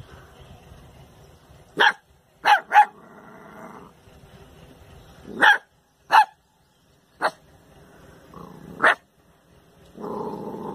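A puppy barking at its own reflection in a mirror: about seven short, sharp barks at uneven intervals, some in quick pairs.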